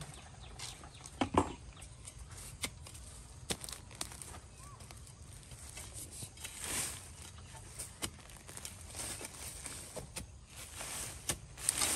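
Metal digging bar jabbing into dry soil and leaf litter, giving irregular sharp knocks with bursts of scraping and rustling.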